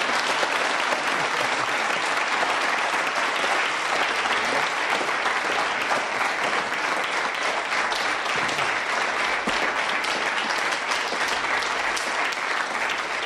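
Large studio audience applauding, a dense, steady clapping of many hands that eases slightly near the end.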